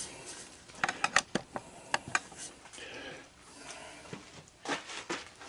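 Scattered light clicks and knocks, a cluster about a second in, another around two seconds and two more near the end, with faint rustling between: tools and metal parts being handled on a workbench.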